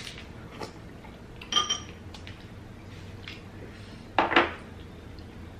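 Metal spoons clinking against ceramic soup bowls: one ringing clink about one and a half seconds in, then two quick knocks about four seconds in.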